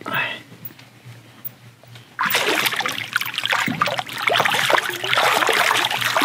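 A carp splashing hard at the water's surface as it is let go into the lake from the hands, beginning about two seconds in and going on in a quick run of slaps and sloshes.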